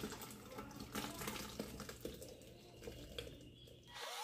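Cooked potatoes and carrots in broth being poured from a pot into a plastic blender jar: liquid splashing in, with a few soft plops as pieces drop.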